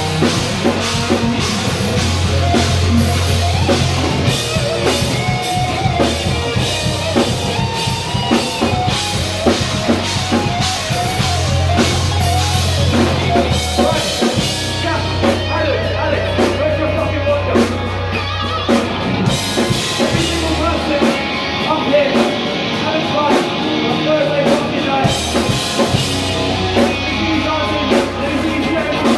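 A live heavy rock band playing loud: a drum kit, distorted electric guitars and bass guitar, with a singer's vocals over them.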